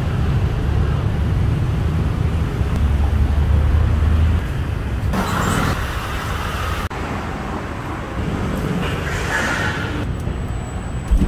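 Street traffic noise: vehicle engines running with a heavy low rumble for the first few seconds, then lighter road noise. The sound changes abruptly several times, at cuts between recordings.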